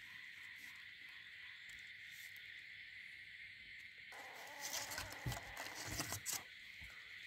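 A gloved hand rustling and bumping inside a cardboard box while shifting newborn kittens, a burst of scraping with several dull thumps from about four seconds in until shortly before the end. A steady high-pitched drone runs underneath throughout.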